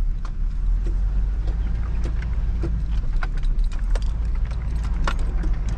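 Pickup truck driving, heard from inside the cab: a steady low engine and road rumble with scattered light clicks and rattles.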